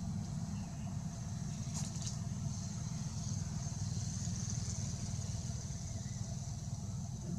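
Steady low rumble of background noise with a thin, steady high buzz above it that grows louder in the middle; no distinct event stands out.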